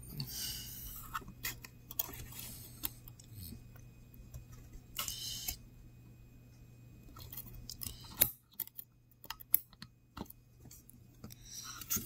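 Small metal clicks and scrapes of tweezers working a tiny retaining clip onto a brushless fan motor's shaft, with two short bursts of heavy breathing. A low background hum stops abruptly about eight seconds in.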